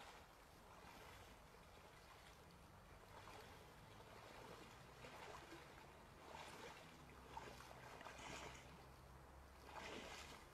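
Faint water sloshing and splashing as a person wades in a shallow pond and sweeps a dip net through the water, in several short swells.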